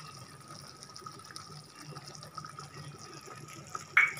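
Paneer tikka masala gravy simmering in a metal kadhai: a steady soft bubbling hiss, with a short sharp clink near the end.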